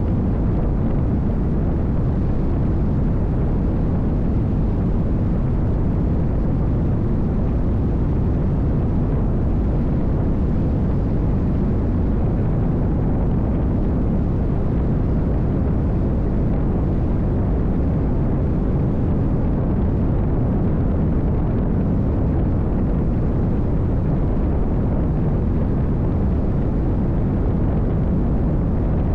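Nitra 22 race boat's V8 engine running at speed, mixed with a steady rush of wind and water. The noise stays even throughout, with no single knocks or changes.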